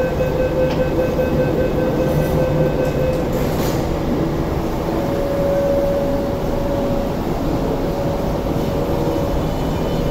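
An MTR South Island Line S-train departing: beeping tones for about three seconds while the doors close, a clunk as they shut, then the Alstom Optonix traction inverter gives a steady whine over the rumble of the wheels as the train pulls away, echoing off the station walls.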